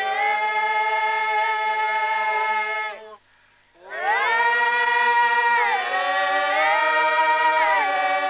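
Several voices singing a traditional Papua New Guinean song together, from a village field recording. There are two long phrases of held notes, each opening with an upward slide, separated by a short breath about three seconds in. In the second phrase the voices step up and down between held pitches.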